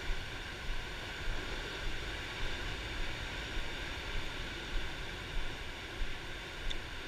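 Steady wash of ocean surf and wind, an even rushing noise with no distinct events.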